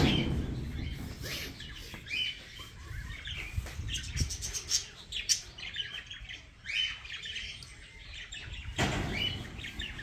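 Budgerigars chirping and chattering, many short high calls scattered and overlapping.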